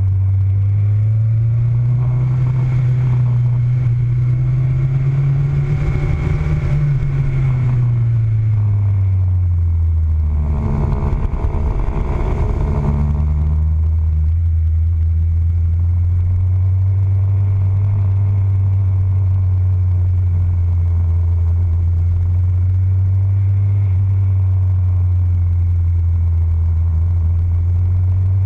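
Motorcycle engine running at low speed, heard from a camera on the front fork. Its note rises gently over the first several seconds and drops back about eight seconds in. A louder, rougher stretch follows around ten to thirteen seconds in, then it settles into a steady low drone.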